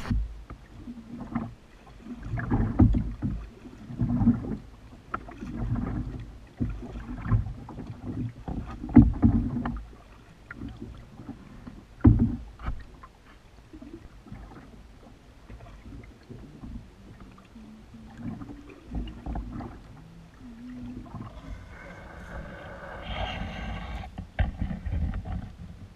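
Canoe being paddled: paddle strokes pulling through the water with splashes and knocks against the hull, about one every second and a half, then a single sharp knock and quieter, scattered water sounds. Near the end a steadier rustling comes in.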